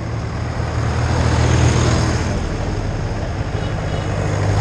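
Vintage tractor engines running steadily as tractors drive past one after another, the low engine note swelling over the first second or so as one passes close by.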